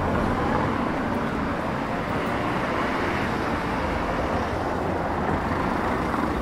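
Steady city street noise with road traffic.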